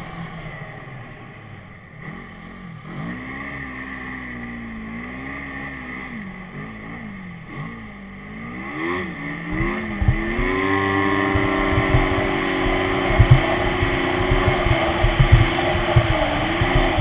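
Yamaha Phazer snowmobile engine running under a varying throttle, its pitch rising and falling. About halfway through it revs up and holds a steady higher speed, then eases off near the end.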